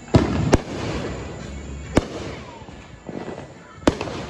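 Aerial fireworks going off: four sharp bangs, the first two about half a second apart and followed by a rushing, crackling hiss, then single bangs about two seconds in and near the end.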